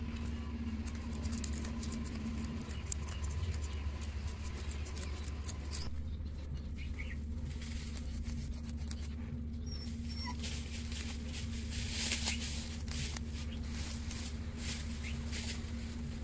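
A curved sickle blade scraping scales off a small fish: a run of short, scratchy strokes, with one sharp click about three seconds in, over a steady low hum.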